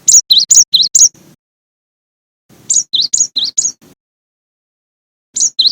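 Cinereous tit (gelatik batu) singing: quick repeated two-note phrases, a high note dropping to a lower one, sung in runs of about a second. There are two runs with a pause of about a second between them, and a third begins near the end.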